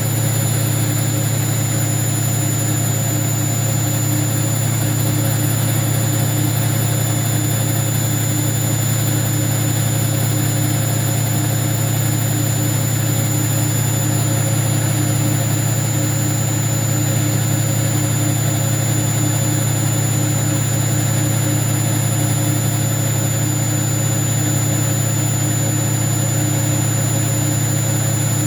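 Hoover washing machine running with a steady loud drone and a faint regular pulsing beat, without a break. The machine is malfunctioning.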